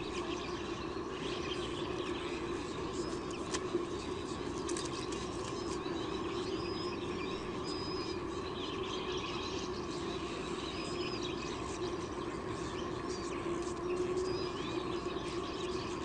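Faint short, high bird chirps scattered over a steady low background hum, with a few light clicks.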